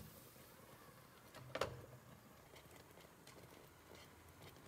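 Near silence, broken by one short knock about one and a half seconds in and a few faint ticks after it.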